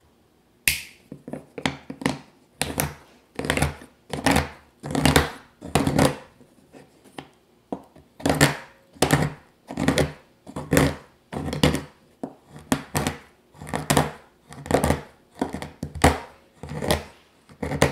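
Chef's knife chopping a bar of sweet chocolate on a wooden cutting board: repeated sharp cutting strokes, each ending in a knock of the blade on the board, about one to two a second.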